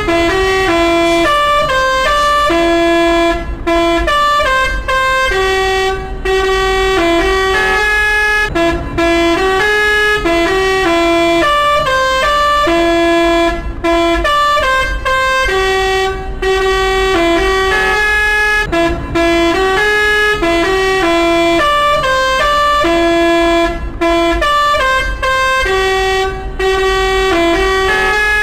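A multi-tone 'telolet' musical horn of the kind fitted to Indonesian buses, playing a short tune of held, clear notes that repeats again and again, over a steady low rumble.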